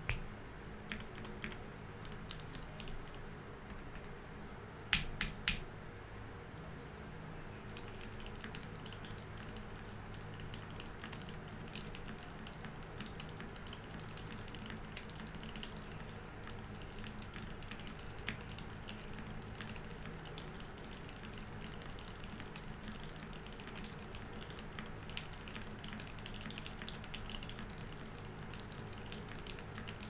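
Fast, continuous typing on a Keycult No. 1/65 mechanical keyboard fitted with Tealios v2 linear switches lubed with Krytox 205g0: a dense, even stream of keystrokes, with a few much harder strokes about five seconds in.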